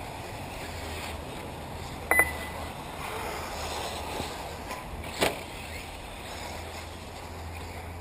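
Nitro-engined 1/8-scale RC buggies running around a dirt track at a distance, their small engines buzzing and revving. A short beep comes about two seconds in, and a sharp knock a little after five seconds.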